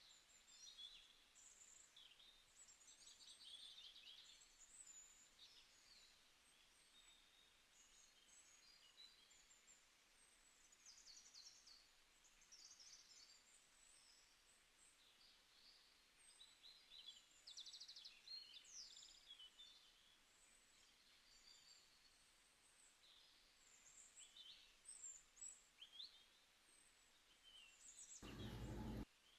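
Faint birdsong: many small birds chirping and trilling over a quiet background. Near the end there is a short burst of noise that stops abruptly.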